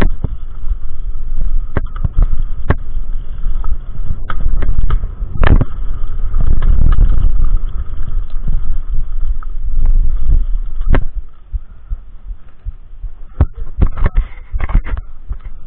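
Mountain bike riding down dirt singletrack: heavy wind buffeting and trail rumble on the microphone, with sharp knocks and rattles as the bike hits bumps. About eleven seconds in the rumble drops away, leaving scattered clicks and rubbing as the camera is handled.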